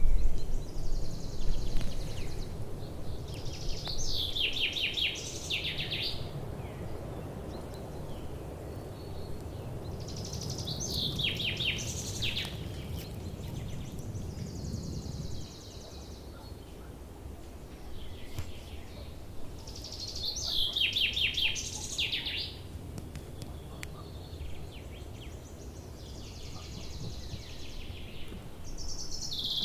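A nightingale singing in separate phrases every several seconds, each a held high whistle followed by rapid rattling trills. A low background rumble underlies it and eases about halfway through.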